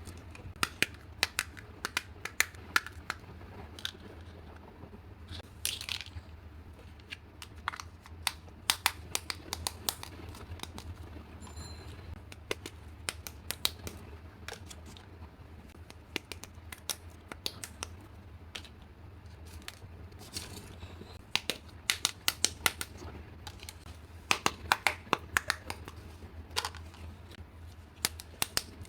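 Small plastic toy pieces and packaging being handled during an unboxing: many irregular sharp clicks and taps, thickest in a couple of busy stretches, with some tearing and crinkling of wrapping over a steady low hum.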